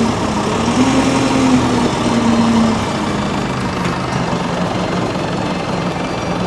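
Engine of a telehandler-type lifting machine running, its pitch rising and falling as it works during the first three seconds, then settling to a steady idle.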